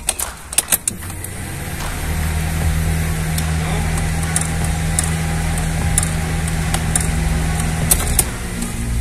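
A few sharp clicks, then a steady motor hum that builds up over about a second, runs evenly and stops shortly before the end.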